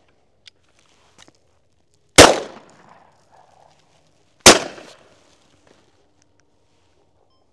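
Two shotgun shots about two seconds apart, each a sharp crack with a short trailing echo.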